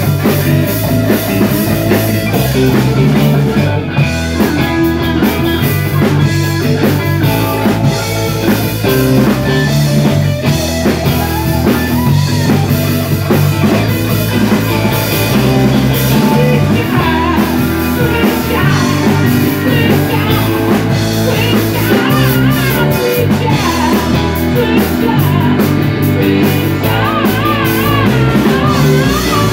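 Live rock band playing: electric guitar over bass guitar and a drum kit, with a man singing into the mic near the end.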